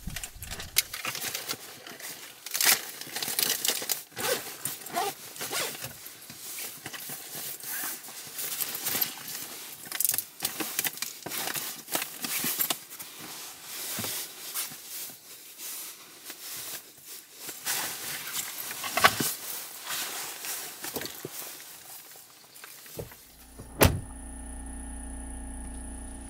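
Handling noise of gear being packed into a bag on a car seat: irregular rustling and crinkling of plastic packaging and fabric, with clicks and occasional thunks. Near the end there is a single sharp knock, then a steady low hum.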